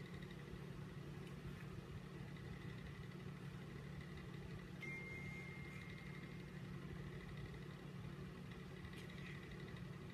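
Steady low background hum with a faint high whine, and a short faint beep about five seconds in.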